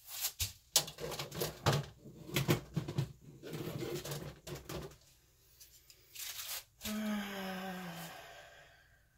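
Irregular knocks and clatter as a paint-covered canvas is lifted and set back down on a foil pan. About two seconds later comes a short hum from a woman's voice, its pitch falling.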